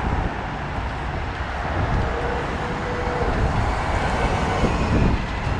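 Steady roar of heavy city-road traffic heard from a moving bicycle, with a strong low rumble underneath.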